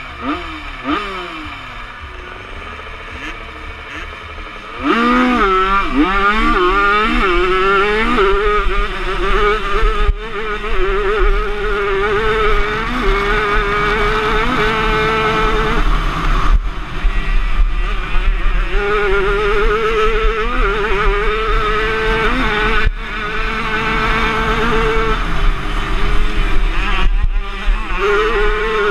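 Motocross bike engine heard onboard, first quieter with engine notes falling in pitch. About five seconds in it is opened up and gets much louder, revving hard, its pitch rising and falling repeatedly as the rider accelerates and backs off along the track.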